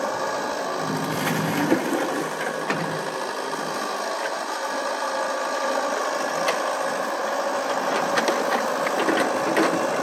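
Yanmar ViO70 mini excavator's diesel engine running steadily under load while it digs mud, with a few light clanks scattered through.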